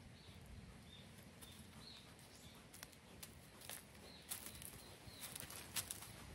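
Faint rustling and crackling of dry leaves and twigs as a young wild boar roots in the leaf litter and steps about, the crackles growing more frequent in the second half. Faint short high chirps, likely a small bird, come a few times.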